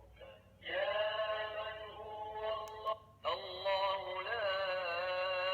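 A man's voice chanting a recorded Quranic ruqyah recitation in long, held melodic phrases, played through the small speaker of a plug-in automatic ruqyah player. The voice starts just under a second in, pauses briefly about three seconds in, then carries on.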